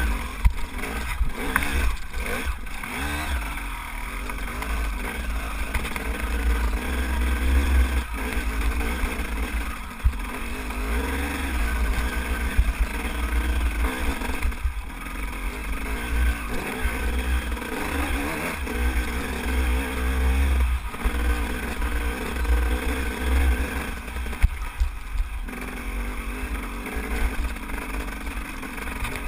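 Enduro dirt bike engine running under load and revving up and down as it climbs a rocky trail, with occasional sharp knocks from the bike over rocks. A heavy low rumble runs underneath.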